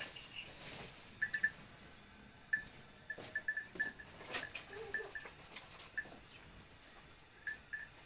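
Faint sounds of a goat herd, with scattered short, high clinks repeating at irregular intervals.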